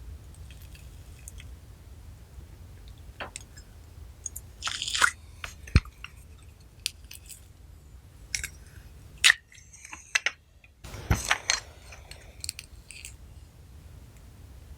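Slime being squished and worked, giving irregular sticky pops and clicks with short wet crackles, a few of them louder than the rest.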